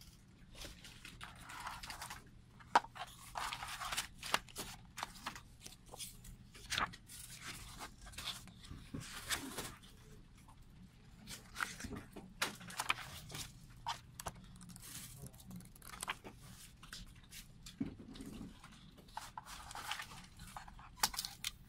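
Paper and card rustling, scraping and light taps as hands handle card sleeves, plastic disc cases and the glossy pages of a photobook being flipped, with one sharper tap about three seconds in.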